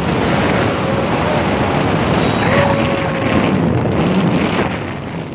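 Wind rushing hard over a phone microphone held out on a moving motorcycle at road speed, a loud steady roar of wind noise.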